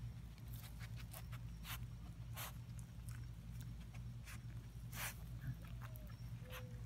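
Portuguese Water Dog puppy sniffing and mouthing at grass and reeds: faint, irregular snuffles, rustles and small clicks over a low steady hum.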